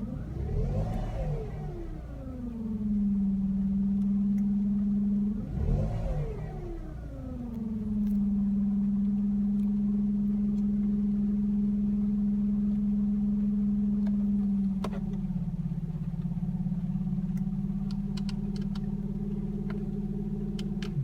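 Toyota Passo's three-cylinder engine with a whine from a worn alternator bearing. The whine climbs and falls back twice as the engine is blipped, then holds a steady pitch at idle. The owner says the noise has been getting louder over the past week.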